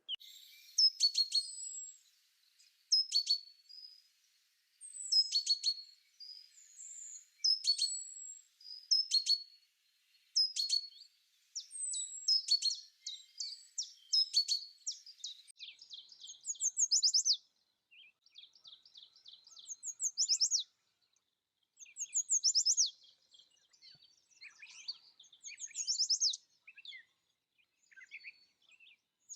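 Small birds singing: short, high chirped phrases repeated every second or two, turning to quick trills in the second half.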